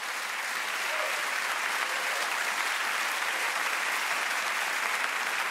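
Audience applauding, a dense, even clapping.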